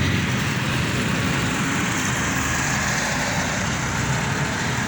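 Steady engine hum and road noise of a moving road vehicle.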